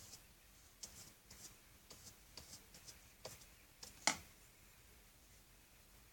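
Faint scratching strokes of a paintbrush laying acrylic paint onto paper, a quick run of short brushes, then a single sharp click about four seconds in.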